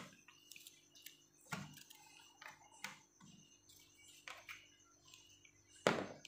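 Wooden craft sticks being set down one at a time on a blackboard: a series of faint light taps and clicks, with a louder knock near the end.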